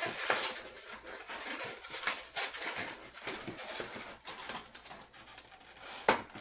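Latex balloons rubbing and stretching as a scrap of white 260 balloon is pulled into a double knot around a twist, with irregular scratchy handling noise. Near the end, one sharp snip of scissors cutting off the knot's tail.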